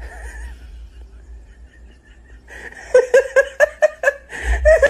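Laughter: a quick run of short, pitched 'ha' sounds, about five or six a second, starting about two and a half seconds in.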